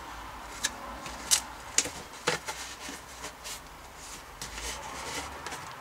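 Handling noise from a plastic funnel on a flexible vacuum-cleaner hose being moved into position: a few sharp clicks and knocks, the loudest about a second in, with light rubbing between them.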